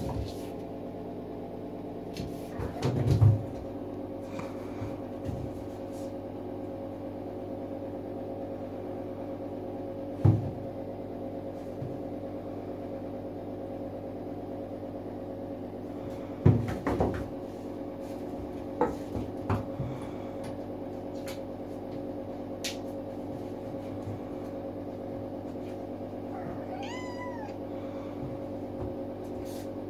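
A ragdoll kitten in an empty bathtub bumping against the tub with a few scattered thumps, then giving one short meow near the end, over a steady hum.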